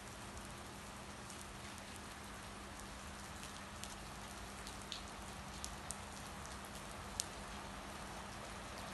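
Steady rain falling on a wet station platform, with scattered sharp drops striking close by, the sharpest about seven seconds in. A faint steady hum lies underneath.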